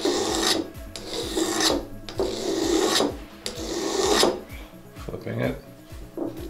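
Steel broadhead blade rubbed back and forth on a diamond sharpening stone in repeated scraping strokes, about one a second: a three-blade single-bevel broadhead being sharpened by hand.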